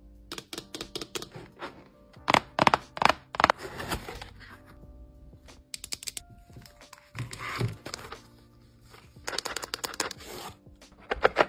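Quick clusters of sharp taps and clicks as a mechanical keyboard kit and its boxes are handled, loudest about two seconds in and again near the end. Soft background music plays throughout.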